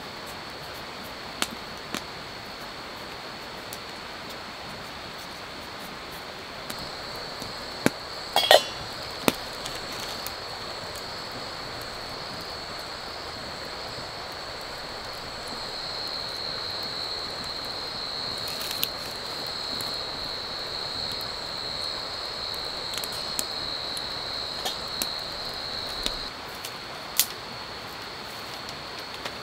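Wood fire crackling in a clay stove, with scattered clinks of metal cookware, loudest about eight seconds in. A steady high-pitched insect drone runs underneath and swells partway through.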